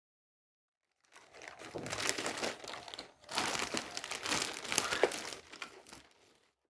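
Packaging crinkling as it is handled, in two bouts with a short break about three seconds in.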